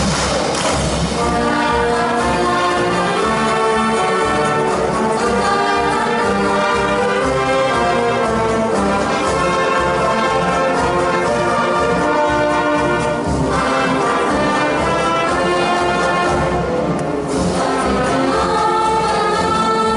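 Massed marching bands playing together, a full brass band sound of sustained chords.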